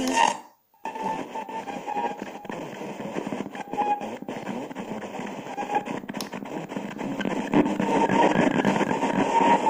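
Redmaine MS-208BT Bluetooth speaker's music cuts out about half a second in as its mode buttons are pressed. After a short silence it plays FM radio static, a steady hiss with crackle and faint snatches of a station, as the tuner sits between stations. The static grows louder near the end.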